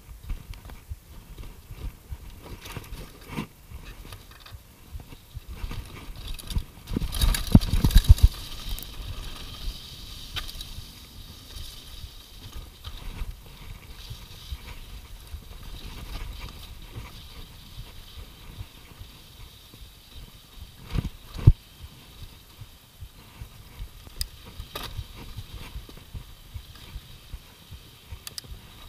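Mountain bike rolling fast down a rocky dirt singletrack: a constant low rumble of tyres on the trail and many short knocks and rattles from the bike over bumps. There is a loud cluster of hard hits about seven to eight seconds in, and another sharp knock about twenty-one seconds in.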